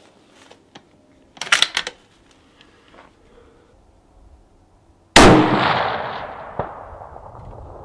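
A single rifle shot from a bolt-action precision rifle about five seconds in, a sharp report with an echo that dies away over about two seconds. About a second and a half after the shot a faint ring follows: the bullet striking a steel plate target.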